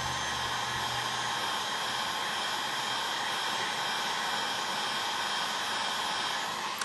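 Heat gun blowing steadily on the edge of an iPad mini screen to soften the adhesive under the glass, with a sharp click near the end.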